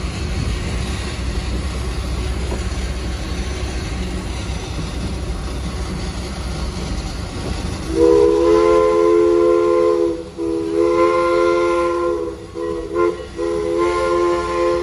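Steam locomotive chime whistle sounding a chord of several tones in repeated blasts, starting about eight seconds in: two long blasts, a short toot, then another long blast. Before it, a steady low rumble.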